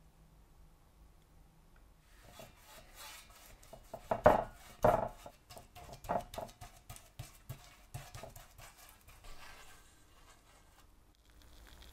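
Bristle paint brush scrubbing and dabbing liquid onto a rusty metal stove part: a run of irregular brushing strokes that starts about two seconds in, is loudest around four to six seconds in, and dies away near the end.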